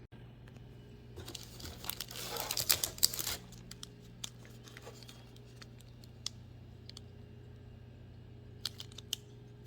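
Packaging being crinkled and torn open, loudest from about one to three and a half seconds in, followed by scattered light clicks and taps of handling.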